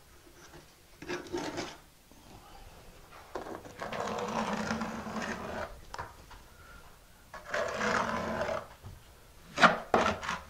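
A quarter-inch square-notch steel trowel scraping thin-set mortar across a shower ceiling in several rough strokes, the longest about two to three seconds, ending in a few short, sharp strokes.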